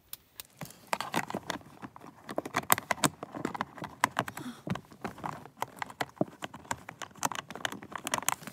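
Irregular clicks and knocks of a hand tool working at a blower-motor mounting bolt under a truck's dash, mixed with rubbing of a hand and sleeve close to the microphone.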